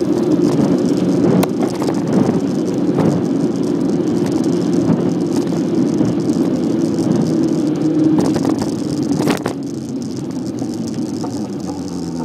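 Bicycle riding along an asphalt street, heard through a camera mounted on the bike: a steady rumble of tyres and rushing air with the bike rattling, and a few sharp knocks from bumps, about a second and a half in, at three seconds and near nine seconds. The rumble drops a little in the last few seconds.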